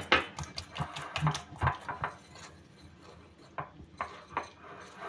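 Coil whisk clinking and scraping against a bowl in quick, irregular strokes as egg and flour are beaten into a thick batter.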